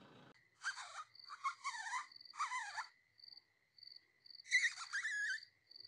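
Lip squeaks used to call in a fox: three quick squeaky calls with sweeping pitch and a breathy hiss, then one more about four and a half seconds in. A steady high insect trill runs underneath.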